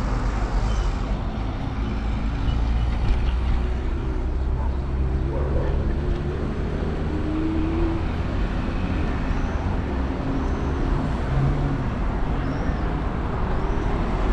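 Steady rumble of road traffic, with vehicle engine tones rising and falling as cars pass.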